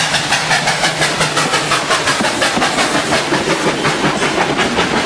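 Train running with a fast, even clattering rhythm over a steady hiss and a low hum.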